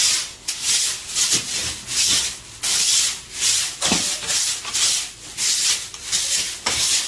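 An old broom sweeping a hard floor in quick repeated strokes, about ten scrapes of the bristles, with a soft knock about four seconds in.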